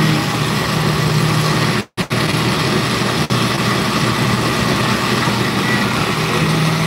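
Countertop blender with a glass jar running steadily, its motor blending a thick liquid mixture. The sound cuts out for a split second about two seconds in, then carries on.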